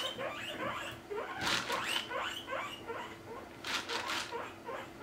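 Guinea pigs wheeking: a quick run of short, rising squeals, several a second, with a brief lull about three seconds in. They are begging for food at the sight of the pellet jar.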